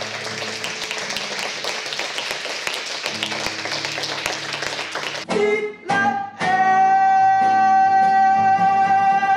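Unamplified acoustic guitar strummed fast and hard for about five seconds. Then a man's singing voice comes in with two short notes and a long held high note, with the guitar underneath.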